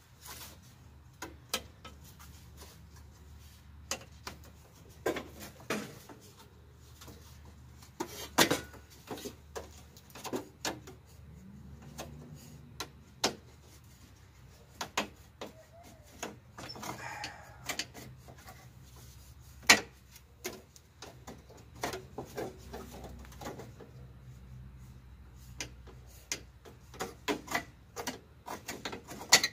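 Irregular clicks, knocks and rattles of plastic and metal parts being handled as a cover is worked free from the radiator support of a Jeep Liberty.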